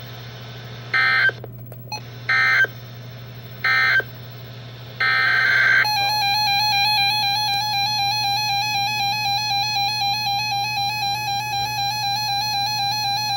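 NOAA Weather Radio end-of-message digital data bursts: three short, buzzy bursts about a second apart, then a longer burst. About six seconds in, a steady electronic tone with a slight warble takes over and holds, with a low hum underneath.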